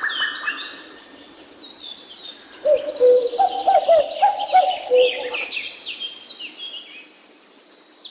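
Several birds singing together: a fast, high trill from about a second and a half in until about five seconds, lower whistled notes in the middle, and scattered chirps throughout, over a faint steady hiss of running river water.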